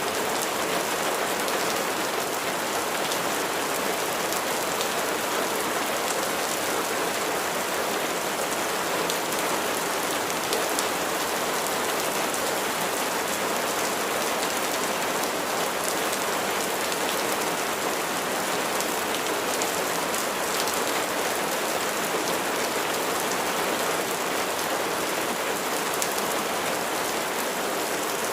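Steady rain falling, a dense even hiss of drops striking a surface with fine scattered patter.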